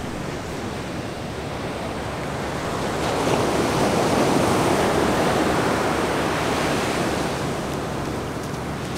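Ocean surf washing up the beach, swelling as a wave breaks about three seconds in and then easing off.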